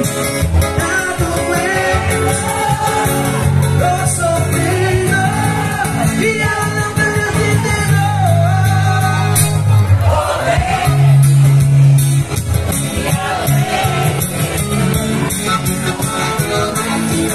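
Live band music with singing, a steady bass line under the melody, and a crowd of dancers singing along.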